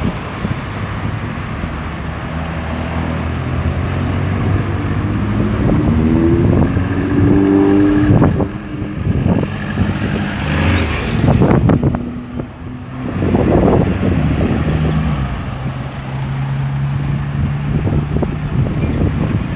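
Road traffic at a roundabout: cars and other vehicles passing one after another. Their engines rise in pitch as they pull away, with several loud swells as vehicles go by.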